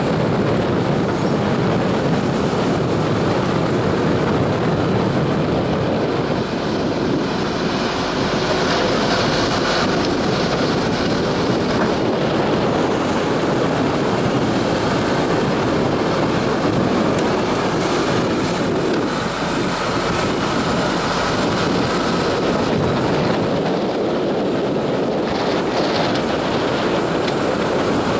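Excavator on a dredging barge running steadily as it sweeps its bucket through the water like an oar to push the barge along, with water churning around the bucket and wind on the microphone.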